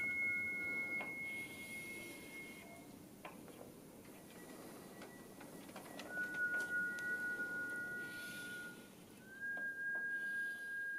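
Sound installation playing high, pure sustained tones, one or two at a time, each held a few seconds at a different pitch; near the end one slides up slightly. Faint clicks and a soft hiss run beneath.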